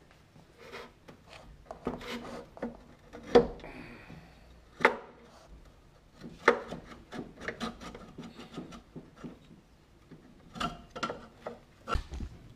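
Hands and tools working at a scooter's front brake caliper: scattered metal clicks, taps and scraping, with a few sharp knocks in the first half.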